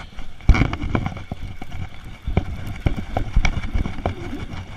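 Irregular knocks, taps and clicks of a baitcasting reel and rod being handled close to the microphone, with a hard knock about half a second in.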